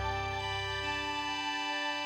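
Gentle background music of long held notes. Its deep bass note fades away over the first second and a half.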